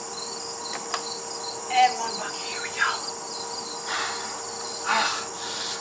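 Crickets chirping in a steady chorus, with a faint steady hum and a few short soft noises over it.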